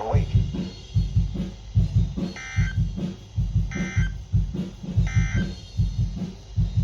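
Three short, identical bursts of Emergency Alert System digital data tones, the end-of-message signal that closes the alert, about a second and a half apart, over background music with a steady drum beat.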